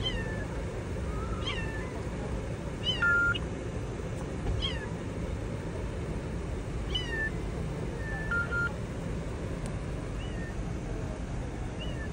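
Kitten meowing repeatedly from inside a car's engine compartment, where it is trapped under the hood. The cries are short, high and falling in pitch, one every second or two.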